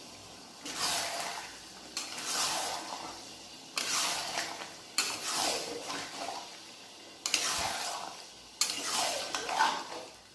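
Mutton pieces in spiced masala stirred and scraped around a cooking pot with a spatula during kosha slow-frying, in about six separate strokes, each starting sharply and fading, roughly one every second and a half.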